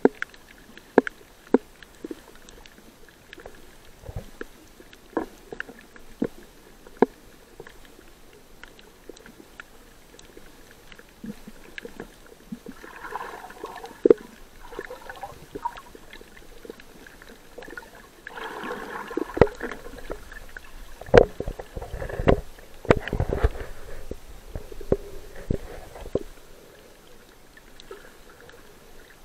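Muffled water sound picked up by a camera held underwater: scattered sharp clicks and knocks, with bursts of bubbling and gurgling near the middle and again later, where a few heavy low thumps are the loudest part.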